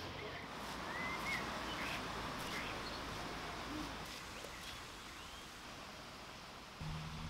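Outdoor ambience with birds chirping a few times over a steady background hiss. A low hum comes in near the end.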